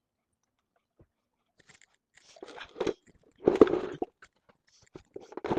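Several irregular bursts of crunching, scraping handling noise from bike parts being worked by hand, the loudest about three and a half seconds in.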